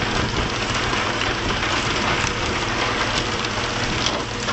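Steady rushing hiss of water spray and splashing along the hull of a pole-and-line tuna boat, over the low steady hum of the boat's engine, with a few faint knocks.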